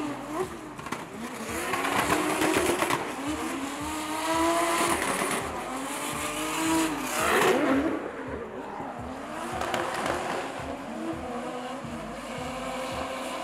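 Two drift cars sliding in tandem, their engines revving up and down under hard throttle while the rear tyres spin and smoke. The engine pitch rises and falls repeatedly, with one sharp climb and drop about seven seconds in.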